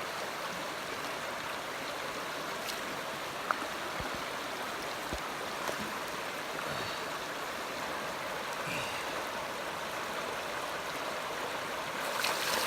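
Creek water rushing steadily, its strong current a constant even hiss, with two faint knocks a few seconds in.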